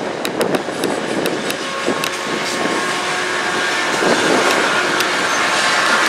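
BNSF diesel freight locomotives approaching and passing close, engines running under a steady rumble that builds toward the end. Sharp clicks of wheels over rail joints come in the first couple of seconds, with faint steady whining tones underneath.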